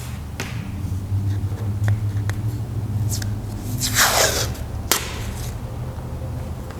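Masking tape handled at a workbench: light taps and clicks, then a short ripping sound about four seconds in as tape is pulled off the roll, and a sharp click just after. A steady low hum underlies it.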